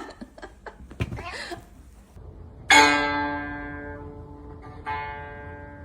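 Two plucked string notes, each starting sharply and ringing as it fades. The second comes about two seconds after the first and is quieter. Before them are a few faint clicks and a brief voice-like sound.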